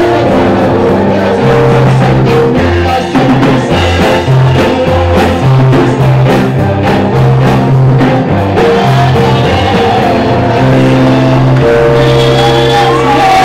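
Loud amplified church music: a group sings a Christmas carol through microphones over a band with a steady bass line and drum beats.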